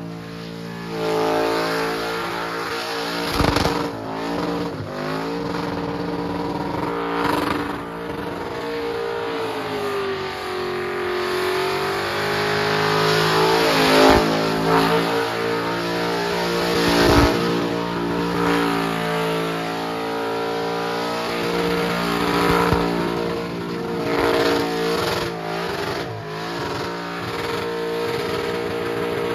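Holden Commodore burnout car's engine held high in the revs during a burnout, bouncing with small dips and one longer dip and climb back up about halfway through, over the hiss of spinning rear tyres. A few sharp bangs break through.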